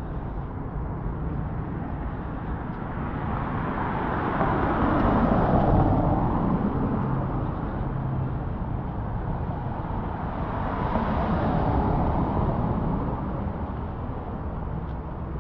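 Street traffic on a city road: one vehicle passes by, loudest about six seconds in, and a second passes around eleven seconds in, over a steady background hum of traffic.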